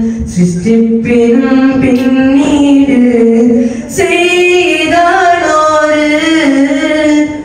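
A teenage boy's high voice singing a Malayalam madh song (an Islamic devotional song in praise of the Prophet) unaccompanied into a microphone, holding long, wavering notes. A short breath about four seconds in, then he takes up a higher phrase.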